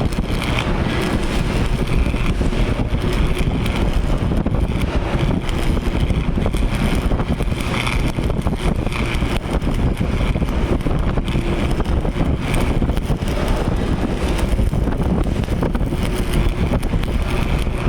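Arc welding machine cutting thin sheet iron: a steady crackling hiss of the arc with no break.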